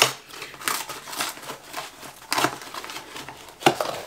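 Crinkling plastic packaging around a pack of velveteen hangers being handled, in irregular bursts of crackling.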